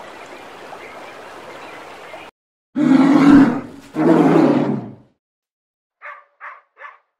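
A steady rush of sea waves, then a bear giving two long, deep growls, the loudest sounds here. After a pause, a husky barks three times in quick short yaps.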